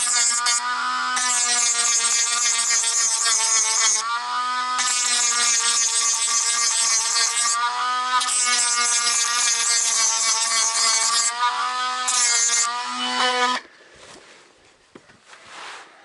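Electric grinder running with a steady whine. A harsh grinding hiss comes in about five stretches with short breaks as the abrasive stone cuts the pipe. The tool cuts off abruptly near the end.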